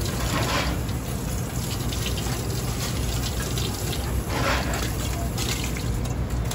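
Tap water running into a stainless steel sink and splashing off an Alaskan king crab's top shell as it is rinsed, with louder splashes about half a second in and again past the middle as the shell is turned and the water pours off it.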